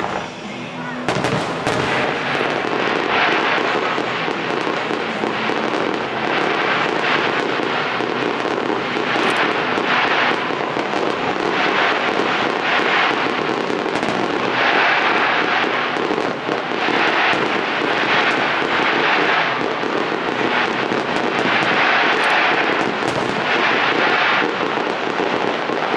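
Aerial fireworks display: a dense, continuous barrage of many small crackling pops and bangs that steps up about a second in, with louder surges every second or two.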